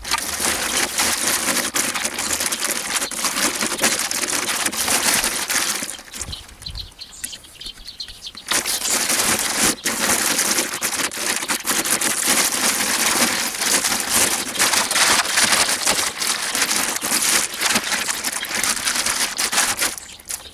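Plastic sack of garden soil rustling and crinkling as it is cut open, tipped upside down and emptied into a planting hole, with the soil spilling out. The rustling eases off for about two seconds partway through, then resumes.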